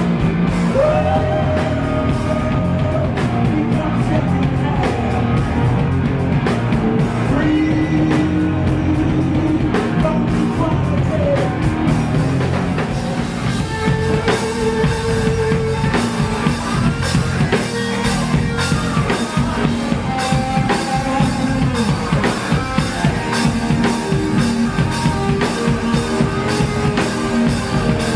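Punk rock band playing live: drum kit, guitar and bass, with singing in long held notes. The drumming gets busier with sharp snare and cymbal hits about halfway through.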